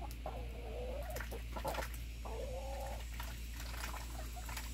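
A hen gives two drawn-out, wavering calls about a second apart, each lasting under a second, with light clicks and ticks between them.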